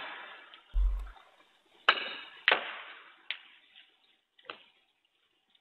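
A snooker shot: a sharp click of the cue tip on the cue ball, then a second sharp click half a second later and a couple of fainter knocks as the cue ball strikes the balls and cushions, each click ringing briefly in the hall.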